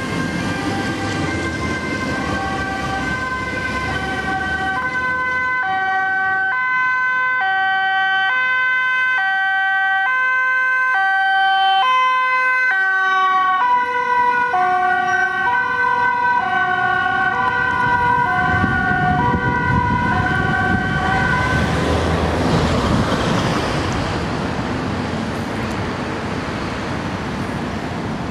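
Ambulance siren sounding a two-tone high-low wail, switching pitch about every 0.7 seconds, getting louder as it approaches, dropping in pitch as the ambulance passes about 13 seconds in, then fading away until it stops about 22 seconds in. Road traffic noise remains after it.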